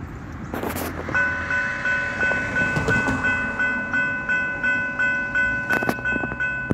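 Level crossing warning bell starts ringing about a second in, with rapid, even strokes at about four a second: the signal that a train is approaching the crossing.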